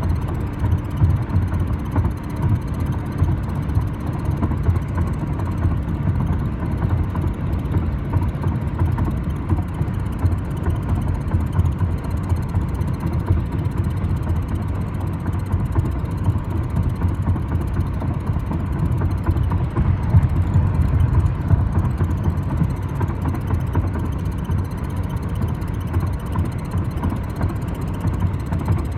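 A 2012 Dodge Avenger being driven: steady low road and drivetrain rumble with a persistent squeak that the owner cannot yet diagnose.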